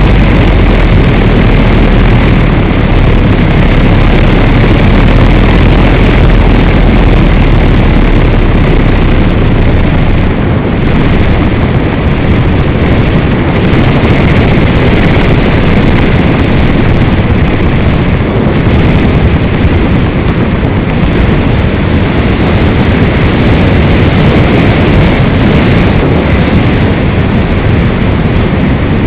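Loud, steady rush of flight noise on an RC glider's onboard camera microphone: airflow buffeting the mic as an EasyGlider Pro flies, unchanging throughout.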